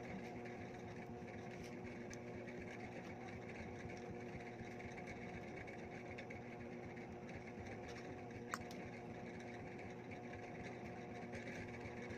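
A steady machine hum and whir, with several tones held level throughout. One sharp click comes about eight and a half seconds in.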